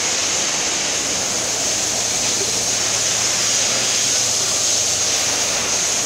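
Steady rushing noise with a strong hiss, joined by a faint low hum about a second and a half in.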